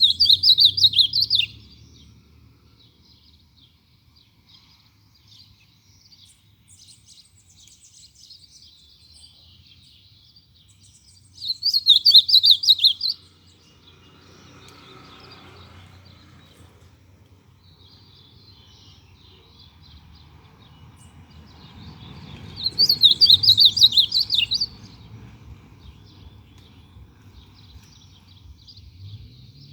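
Ultramarine grosbeak (azulão) singing three short, quick warbling phrases, each about one and a half to two seconds long and about ten seconds apart, with faint chirps of other birds in the gaps.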